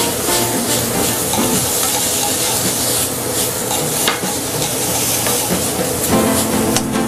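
Mushroom, ham and breadcrumb stuffing sizzling steadily in a hot sauté pan while it is stirred and pushed around with a utensil, with scattered clicks of the utensil against the pan.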